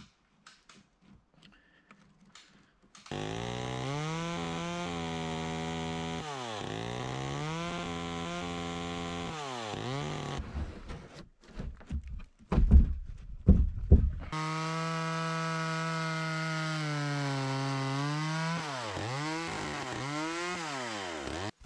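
Chainsaw running at high speed and cutting a rough-sawn board, its pitch dropping each time the chain bites into the wood. In the middle it breaks off for a few seconds of loud knocks and clatter, then runs and cuts again, pitch dipping, until it stops just before the end.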